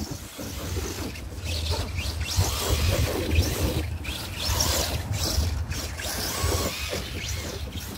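Arrma Granite 4WD RC monster truck driving over dirt, its electric motor whining up and down in pitch as the throttle is worked, over a low rumble.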